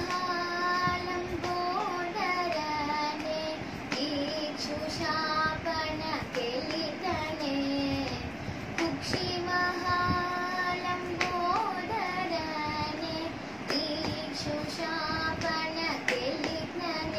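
A young girl singing a Carnatic devotional song solo, holding long notes with gliding ornaments. Light hand taps on her lap keep the tala.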